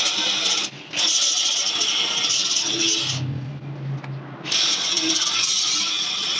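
Handheld angle grinder grinding down weld beads on a steel grill door, a steady harsh hiss of the disc on the metal. The grinding breaks off briefly just under a second in, then stops for over a second midway, leaving only a low hum, before the disc bites into the metal again.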